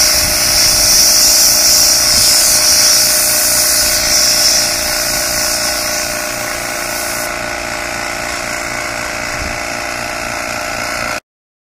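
Compressed-air sandblast gun with a bottle hopper blasting sand against an aluminum Briggs and Stratton engine block: a loud, steady hiss of air and grit, with a steady hum underneath. The hiss weakens about halfway through, and all sound cuts off abruptly near the end.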